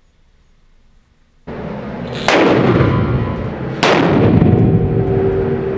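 Two rifle shots from a test barrel, about a second and a half apart, fired at an FB6 bullet-resistant window. Each shot is a sharp crack followed by a long ringing echo in the range.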